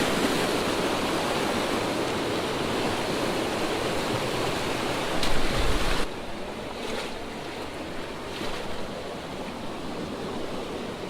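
Swift mountain creek water rushing steadily. About six seconds in there is a short low bump, after which the rushing is noticeably quieter.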